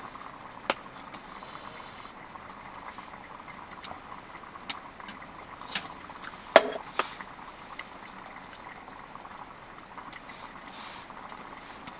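Steady hiss of rain on the canvas tipi tent, with scattered small clicks and one sharper knock about six and a half seconds in, from a wooden spoon and wooden cup being handled while eating.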